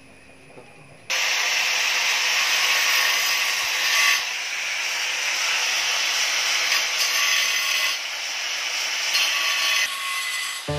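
Angle grinder cutting into a terracotta clay flower pot: a steady, gritty abrasive hiss that starts about a second in and runs on with small surges.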